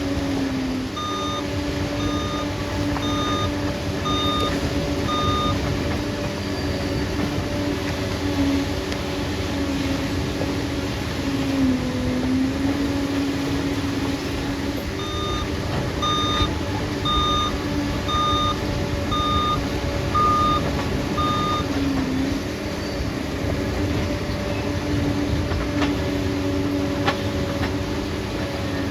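Liebherr bulldozer's diesel engine running steadily while its reversing alarm beeps about once a second, five beeps a second in and seven more about halfway through, signalling that the dozer is backing up. The engine note sags briefly twice under load.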